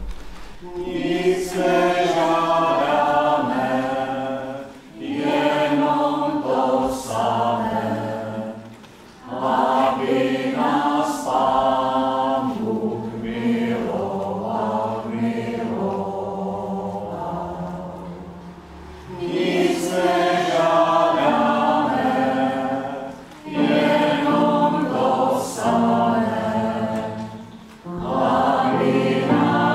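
A small mixed choir of men's and women's voices singing in several phrases, with short breaks between them.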